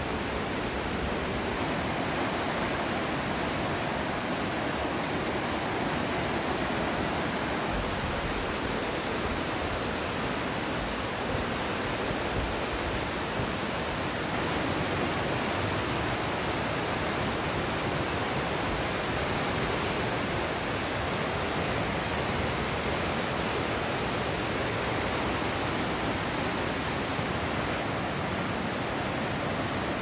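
Fast mountain river rushing through a narrow rock gorge: a steady rush of water.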